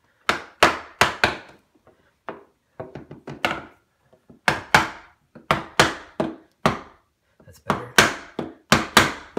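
Hammer striking a hardwood block held against a curved vinyl glazing stop, driving the stop into a half-round window frame. The sharp wooden knocks come in quick runs of several blows with short pauses, and some blows are lighter taps.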